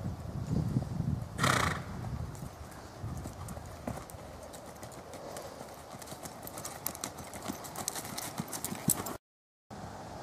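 Hoofbeats of a ridden Tennessee Walking Horse gaiting over dirt and dry leaves, with fine crackling underfoot. One short loud burst about a second and a half in, and the sound drops out for a moment near the end.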